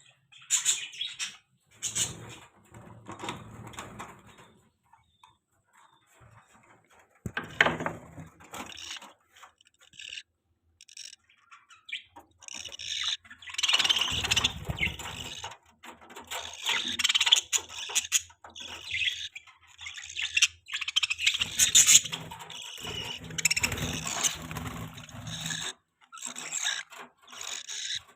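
Budgerigars chirping and chattering in bursts of high, squeaky calls with short pauses; the calls grow busier and more continuous in the second half.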